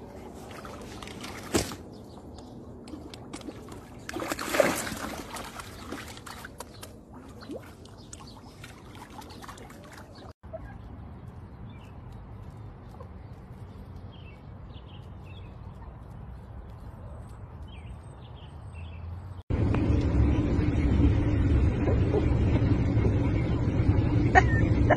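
Lake water splashing and lapping at a rocky shore, with a louder splash about four and a half seconds in. Then comes a quieter stretch with a few faint chirps, and from about twenty seconds in the louder, steady low rumble of a moving car's cabin.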